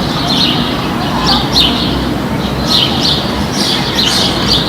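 Park ambience: small birds chirping in short, high-pitched clusters several times a second, over a steady low background rumble.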